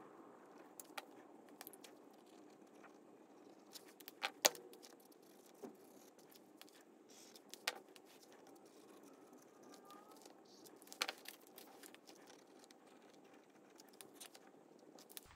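Quiet handling of pens over a paper notebook: scattered sharp clicks and taps as pen caps come off and go back on and pens are picked up and put down, the loudest a little over four seconds in. Faint scratching of pen on paper runs between them.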